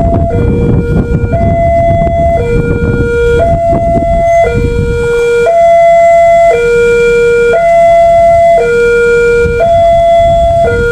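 New railway level-crossing warning siren sounding a two-tone hi-lo call, high and low notes alternating about once a second, warning that a train is approaching and the barriers are closing. A low rumble runs underneath, heaviest in the first half.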